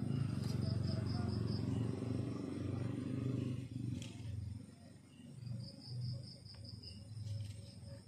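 Crickets trilling in short, evenly pulsed bursts over a low rumbling noise, which is loudest through the first half and dies down about four seconds in; a single click about four seconds in.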